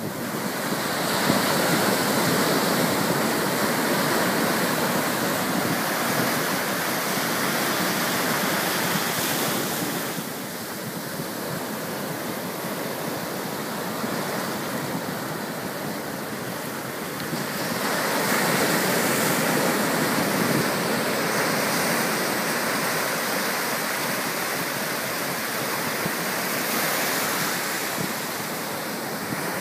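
Ocean surf breaking and washing up the shore: a steady rush of water that swells about two seconds in and again about eighteen seconds in.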